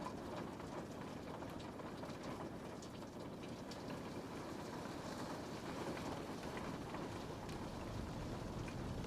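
Rain on a window pane: a steady hiss with scattered taps of single drops, over a low rumble that grows slightly near the end.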